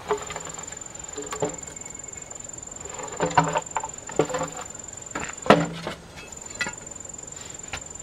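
Hollow bamboo poles knocking against one another as a pole is lifted and shifted, each knock ringing with a hollow tone; the loudest knock comes about five and a half seconds in. A steady high-pitched insect drone runs underneath, dropping out briefly about six seconds in.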